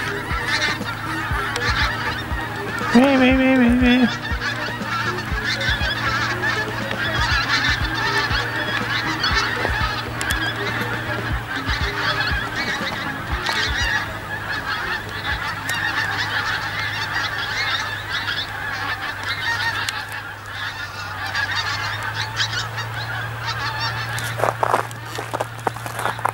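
A large flock of geese flying overhead in skeins, many birds honking at once in a constant overlapping clamour, with one louder, deeper call about three seconds in.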